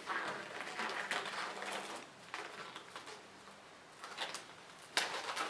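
Disposable medical gloves being pulled onto the hands: plastic rustling for the first couple of seconds, then quieter handling with a few short sharp clicks.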